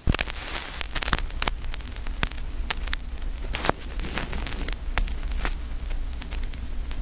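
Crackling static: irregular sharp clicks and pops over a steady hiss and low hum.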